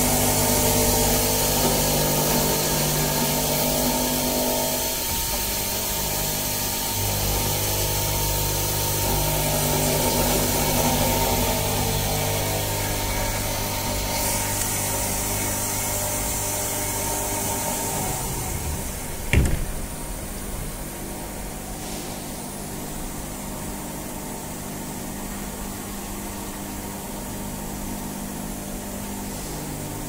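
Vertical machining centre running its CNC program, the spindle turning a small end mill that mills the lock-cylinder keyway in a plate, with a steady machine hum and cutting hiss. A single sharp clack about two-thirds of the way through, after which the machine runs a little quieter.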